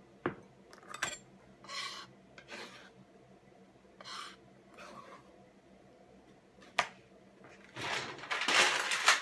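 Kitchen handling sounds: a glass bowl and a kitchen knife knocking against a cutting board, with a few short rustling scrapes as drained chopped herbs are handled. Near the end comes a longer, louder stretch of rushing noise.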